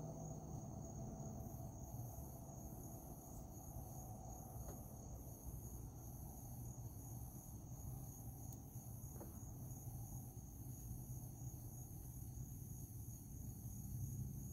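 Night insects trilling steadily at a high pitch, with a second, higher insect call pulsing at an even rate from about a second and a half in. A faint low rumble runs underneath.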